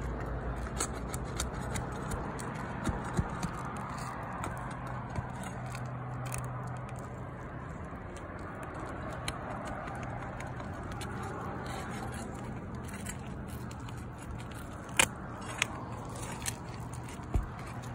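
Flat pry bar scraping and prying under asphalt shingles, loosening them around a pipe jack's flashing, with scattered small clicks. Near the end come a few sharp knocks.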